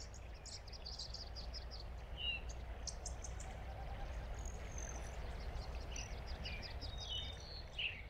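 Outdoor nature ambience: several birds chirping and calling in quick, scattered notes over a steady low rumble of background noise.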